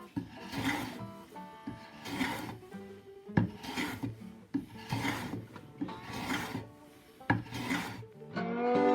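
Abrasive rubbed back and forth on wood in repeated strokes, as in hand sanding the wooden box, with a couple of sharp knocks. Faint background music underneath.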